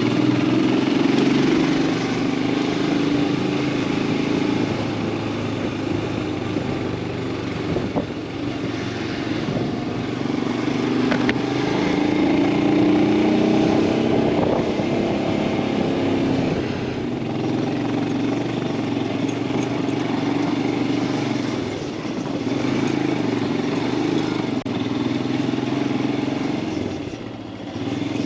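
Royal Enfield Himalayan 411's single-cylinder engine running under way, its note swelling and easing with the throttle, and dropping off briefly near the end before picking up again.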